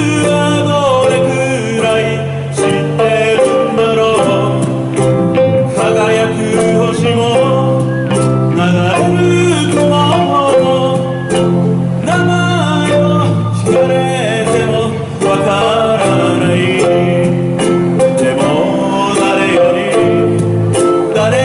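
Live acoustic band playing a song: several ukuleles strumming with a sanshin, and a man singing the melody into a microphone.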